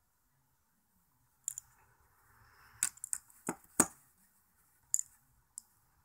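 Balisong knives being handled: a string of about seven sharp clicks and clacks starting about a second and a half in, the loudest a little past the middle.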